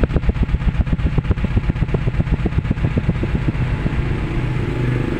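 Exhaust of a Suzuki Carry Futura pickup at idle, puffing from the tailpipe in rapid, uneven pulses, with some beats much stronger than others and a steadier run near the end. The engine runs rough and shakes, as if one cylinder's ignition is not working.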